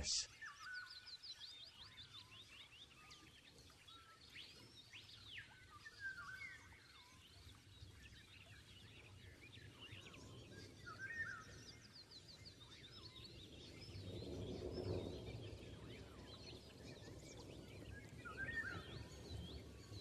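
Faint forest ambience with several birds calling: scattered whistled notes, short gliding calls and high trills. A soft rushing noise swells for a couple of seconds a bit past the middle.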